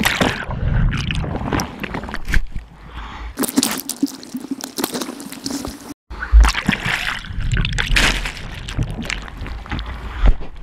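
Seawater splashing and sloshing over a GoPro action camera held at the surface among breaking waves, in irregular bursts. There is a short drop-out about six seconds in, then a loud splash.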